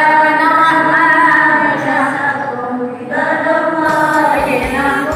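A mixed group of men and women chanting a prayer together in unison, holding long sung notes, with a brief pause for breath about three seconds in.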